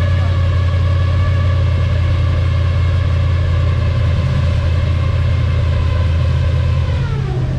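Tour boat's motor running steadily with a strong low hum and a whine above it; near the end the whine drops in pitch as the motor slows.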